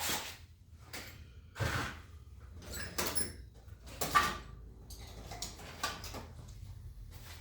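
Short knocks, clicks and brief scrapes from handling tools and parts on a workbench, the sharpest knock about four seconds in.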